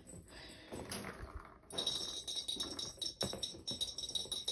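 A small jingling cat toy rattling and clicking in irregular bursts as kittens bat it around a tile floor.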